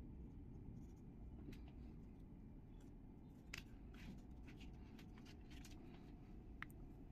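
Near silence: faint low room rumble with a scatter of small clicks and taps, the loudest about three and a half seconds in.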